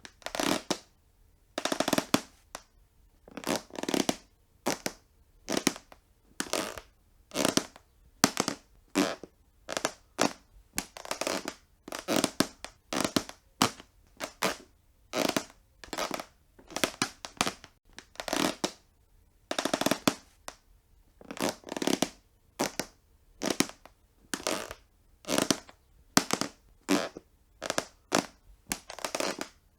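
Wooden floor squeaking and creaking over and over in short, separate creaks at uneven spacing, about one or two a second.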